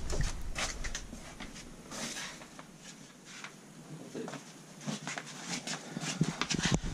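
Scattered light clicks, taps and rustling from a person moving about and handling things, including footsteps on concrete, with no steady machine sound.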